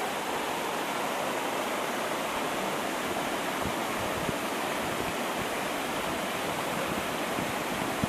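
Waterfall of about 20 to 30 metres, water pouring over a rock face with a steady rushing noise.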